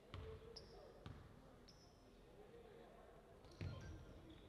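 A basketball bouncing on a gym floor, a few dull thumps, with short high squeaks of sneakers on the hardwood court.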